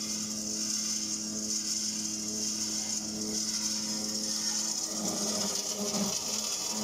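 CNC circular cold saw cutting through a thick-walled metal tube: a steady low motor tone with a high hissing grind of the blade teeth in the steel. About five seconds in the low tone starts to waver as the cut goes on.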